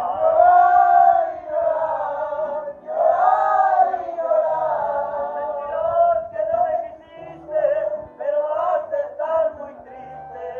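A live band playing, with an accordion and a violin, voices singing held, wavering notes, and a steady bass line underneath.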